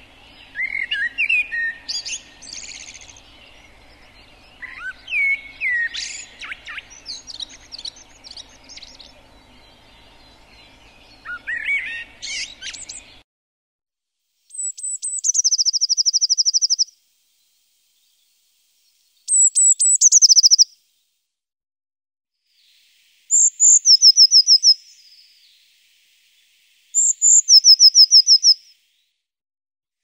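Hawfinch calls. First scattered chirps and quick up-and-down notes over a low steady hum that cuts out about halfway. Then four calls at roughly four-second intervals, each a high note dropping into a fast buzzy trill, against dead silence.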